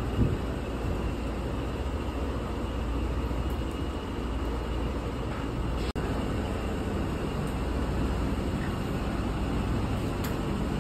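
Papad-making machine running steadily, its motor and rollers giving a continuous low mechanical hum. There is a small knock just after the start, and the sound drops out for an instant about six seconds in before the same running carries on.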